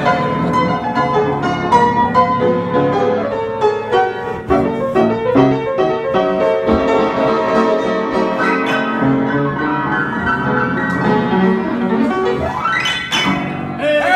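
Solo piano playing on an old upright piano that, by the pianist's own account, plays only 84 of its 88 keys, so a few notes drop out. Quick runs of short notes, with a rising sweep up the keyboard a little before the end.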